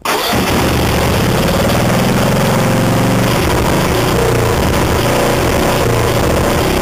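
Riding lawn tractor's small gasoline engine catching at once on the key and then running at a steady speed.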